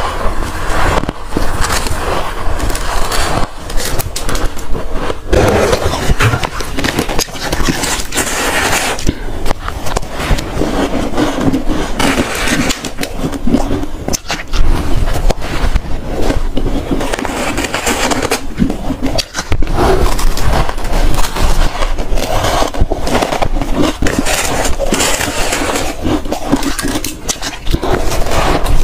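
Freezer frost and ice being scraped and bitten close to the microphone: a dense, unbroken run of crunching and crackling with many small sharp clicks.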